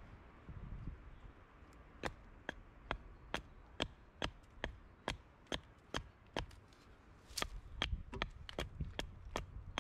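Axe chopping into wood: sharp, evenly spaced strikes about two and a half a second, starting about two seconds in and turning quicker and less regular near the end.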